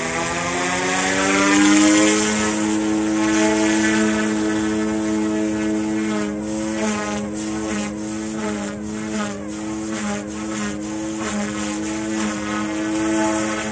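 Eachine E180 RC helicopter's dual brushless direct-drive motors whining as the rotor spools up, rising in pitch over the first two seconds. It then holds a steady high hum, its pitch wavering and dipping repeatedly from about halfway through as the helicopter flies pitch pumps.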